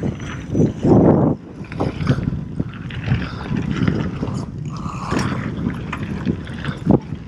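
Mountain bike rolling fast down a dirt and gravel trail: tyres crunching over loose surface, with frequent rattles and clicks from the bike and wind buffeting the helmet camera's microphone. A louder rush of noise comes about a second in.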